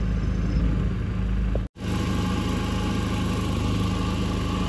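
Boat motor running steadily at low speed, cutting out to silence for a split second a little under two seconds in, then carrying on.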